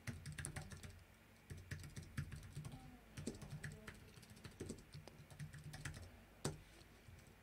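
Faint typing on a computer keyboard: short runs of keystrokes with brief pauses between them, and one sharper keystroke about six and a half seconds in.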